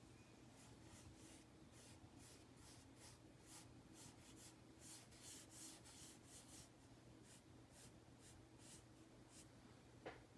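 Faint, soft strokes of a sponge-tipped PanPastel tool rubbed back and forth over paper, about two to three strokes a second, stopping about a second before the end. A single sharp click near the end.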